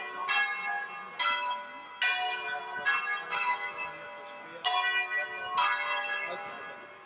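Church bells of Mantua Cathedral's bell tower ringing: a peal of repeated strikes roughly a second apart, each ringing on and fading, in more than one pitch. The ringing cuts off suddenly at the very end.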